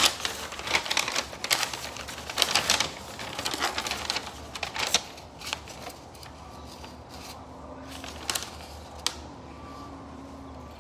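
Folded paper instruction sheet being unfolded and handled, a quick run of rustles and crackles for about the first five seconds, then only a few soft rustles.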